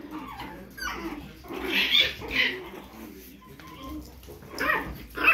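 A small puppy yapping: a few short, high-pitched barks, a pair about two seconds in and more near the end.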